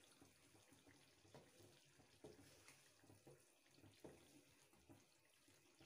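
Near silence: only faint, soft scrapes of a wooden spatula stirring chicken in masala in a pan, a few strokes about a second apart.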